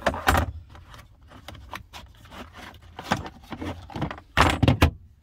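Clunks and rattles of a storage compartment and the jars and cans in it being handled, in several short bursts, the loudest cluster near the end.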